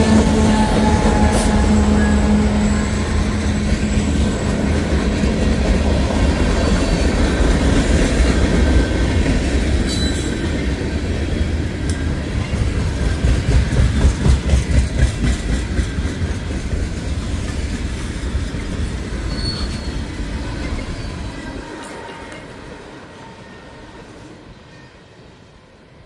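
Diesel freight train passing close by: the locomotive's engine drone and the cars' wheels rolling over the rails, fading away over the last several seconds as the train moves off.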